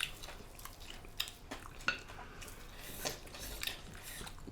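Tableware sounds of a meal: scattered light clinks and scrapes of a utensil against a plate, with a few sharper clicks spread over the seconds.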